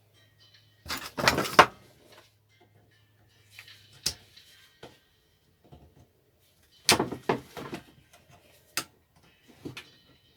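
Clatter and sharp clicks of parts and tools being handled while a lawn mower engine is stripped: a burst of rattling about a second in and another around seven seconds, with single sharp knocks between them.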